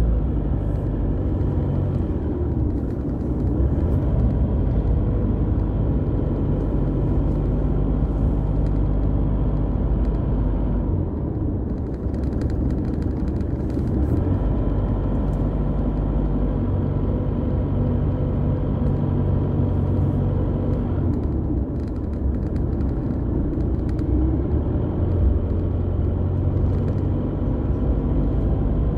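Car engine and tyre rumble heard from inside the cabin while driving, a steady low drone whose engine note shifts a few times as the speed changes.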